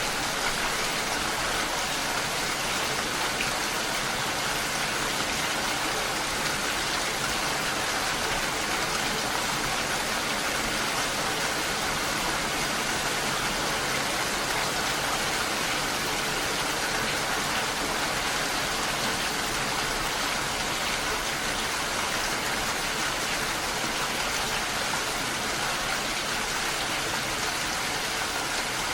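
Steady rain falling, an even hiss that doesn't let up or change.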